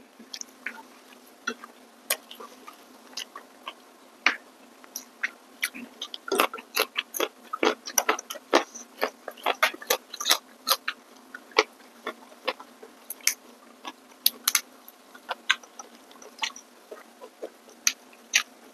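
Close-miked eating by hand: a run of short, crisp crunches and clicks from chewing fresh raw vegetables with rice, busiest in the middle, over a faint steady hum.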